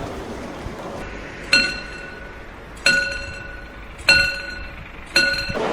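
A bell chime struck four times at the same pitch, about once every 1.2 seconds, each stroke ringing out for about a second: a railway signal or station bell sound effect.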